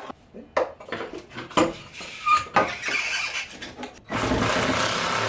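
Scattered knocks and taps of materials being handled, then a steady hissing whir for about two seconds near the end.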